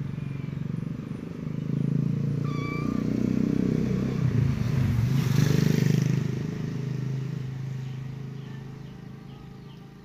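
A motor vehicle engine passing by, likely a motorcycle, growing louder to a peak about halfway through and then fading away. A short bird chirp sounds a couple of seconds in.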